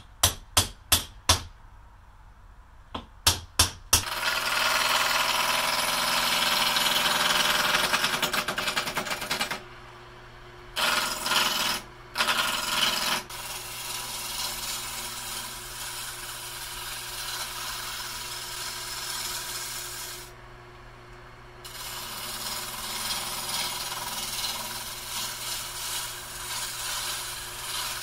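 A hammer strikes a metal rod set in a wooden block, about five blows and then three more. A wood lathe then spins a long wooden handle blank while a hand-held turning tool cuts it, a continuous cutting noise that stops and restarts a few times.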